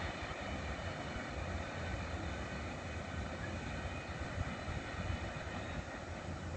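Steady low rumble of a freight train running away down the track, the sound of its wheels on the rails.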